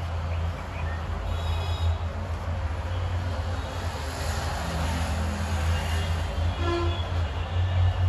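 Street traffic: a vehicle engine runs with a steady low drone, and a horn toots briefly about seven seconds in.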